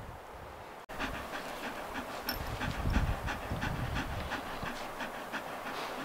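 A dog panting in quick, even breaths, about three to four a second, over a low rumble.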